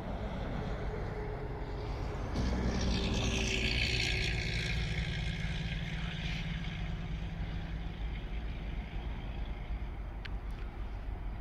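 Diesel engines of GP15-1 switcher locomotives (EMD 12-cylinder two-stroke) working as they pull tank cars slowly through the yard. The engine note steps up about two seconds in and holds for several seconds, with a hiss over it for a few seconds.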